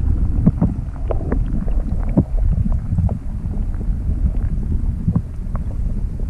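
Wind buffeting the microphone in a steady low rumble, with scattered short knocks and clicks over it.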